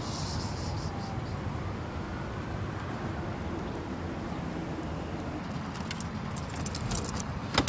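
Steady low outdoor rumble, then near the end a bunch of keys jangling and clicking against a car door lock.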